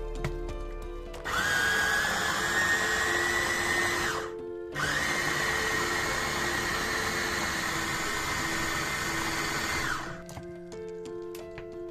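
Electric mini food chopper with a glass bowl running twice: about three seconds, a short stop, then about five seconds. Each time its motor whine rises as it spins up, and it falls away as it stops. It is blending yogurt with herbs.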